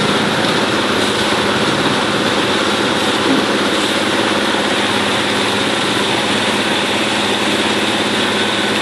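Steady rush and splash of water from a high-pressure hose jet landing on a pond beside an artificial rock waterfall, over a steady engine hum.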